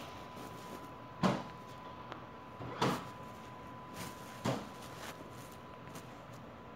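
Three soft knocks or taps, about a second and a half apart, with a smaller one between the last two, over a faint steady high hum.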